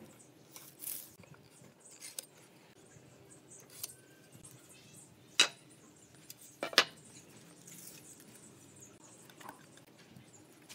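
Sparse light clicks and taps of a tape measure, pen and pine boards being handled on a concrete floor, with two sharp clicks a little past the middle, about a second and a half apart.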